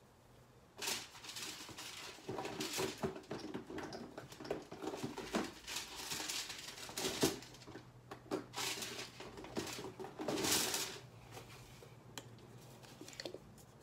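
Irregular clattering and scraping of small hard objects being handled, with sharp clicks and short rustles. It starts about a second in and dies away near the end.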